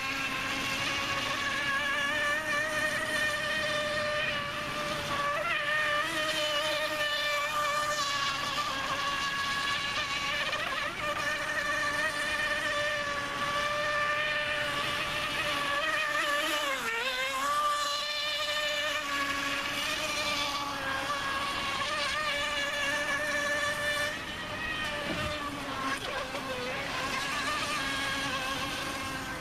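Radio-controlled boat's brushless electric motor driving a Kyosho Dolphin outboard, running at speed with a steady high whine. The pitch dips sharply for a moment and comes back about halfway through, and the sound falls off a little near the end.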